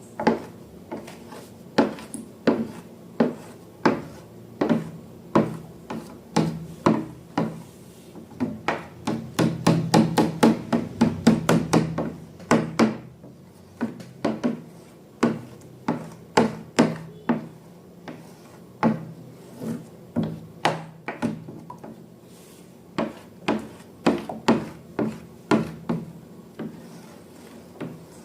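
Slime being mixed and worked in a bowl: a long run of sharp clicks and taps, about two a second, coming faster for a few seconds around the middle.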